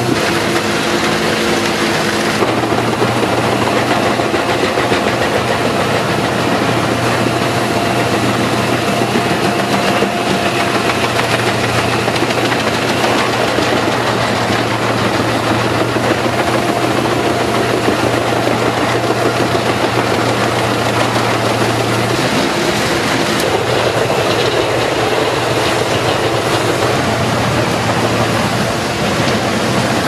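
Albach Diamant 2000 self-propelled wood chipper running under load, its engine working steadily while a whole tree trunk is pulled through the feed rollers and chipped. The steady low hum of the engine shifts about two-thirds of the way through.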